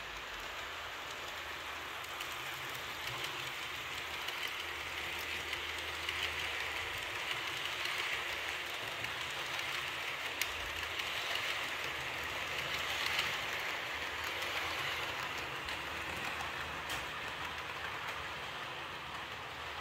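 Model train of Roco SBB EW IV passenger coaches running on model track: a steady rolling hiss of wheels on rail with a low motor hum, swelling as the coaches pass close in the middle. A few sharp clicks stand out, one about ten seconds in and another near the end.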